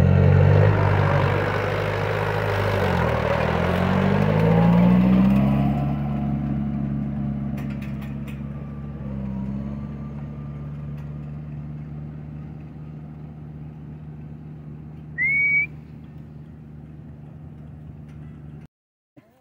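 Farm tractor engine running, its pitch shifting up and down at first, then steady and gradually growing quieter. About fifteen seconds in, one short, loud whistle rises and then holds. The sound cuts off abruptly near the end.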